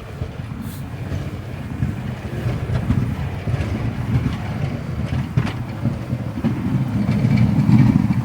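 Blizzard wind buffeting the microphone: a low, gusting rumble that swells near the end.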